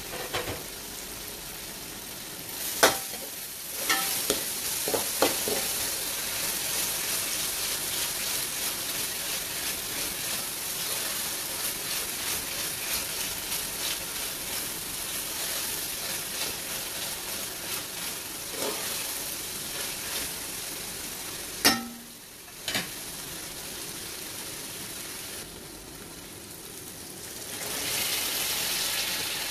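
Red masala sizzling in hot oil in a metal pot while a spatula scrapes through it, knocking sharply against the pot a handful of times. Near the end the sizzling grows louder as raw mutton pieces are tipped into the hot oil.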